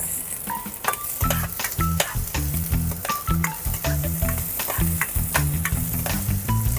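Chopped red onions sizzling in hot oil in a stainless-steel pot, stirred with a metal spatula that clicks and scrapes against the pot: onions being sautéed.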